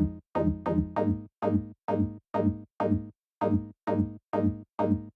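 NI Massive synth patch played as a pluck: a quick run of short notes, about two or three a second, each opening bright and quickly darkening as the envelope closes the low-pass filter. The filter resonance is still turned up, which makes the pluck sound a bit strange.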